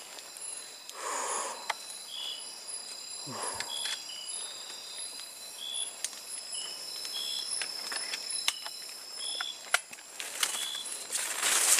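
Night forest insect chorus: short high-pitched cricket-like chirps repeating about once a second over steady high insect tones. A few bursts of rustling break in, the loudest near the end.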